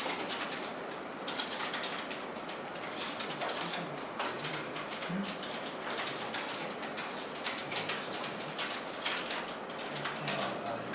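Scattered, irregular clicks of computer keyboards and mice as several people type at once.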